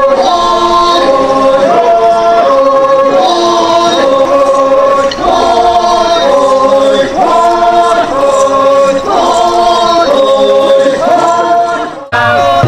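A group of Naga men and women singing a traditional dance song together in chant-like unison, repeating short held phrases. About 12 seconds in the singing cuts off suddenly and music with a low bass beat takes over.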